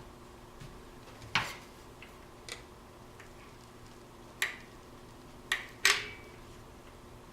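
Five sharp clicks and clinks of hard kitchen objects being handled, irregularly spaced, with the last two about half a second apart and the loudest.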